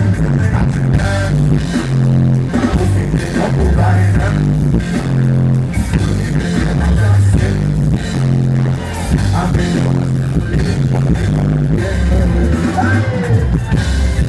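Live band music with a singer: a steady bass line, drums and guitar under a vocal melody.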